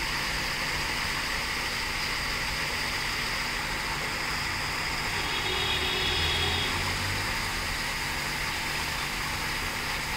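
Steady rush of water falling over a garden waterfall. A brief faint hum joins it about halfway through.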